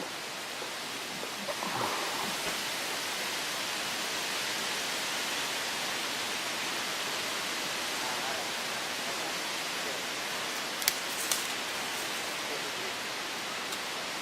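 A steady, even hiss with two sharp clicks close together about eleven seconds in.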